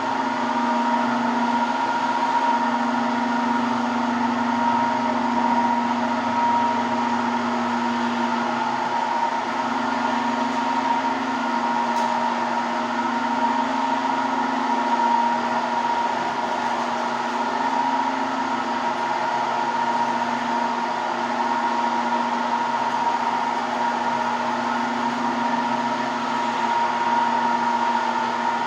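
An electric power tool's motor running steadily at constant speed with a steady whine, typical of a stone grinding or polishing machine.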